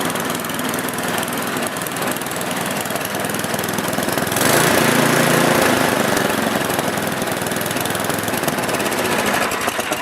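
Four-stroke Tecumseh small engine running steadily with its carburettor air jet replaced, no longer surging up and down. It gets louder for a second or so about halfway through, then settles back.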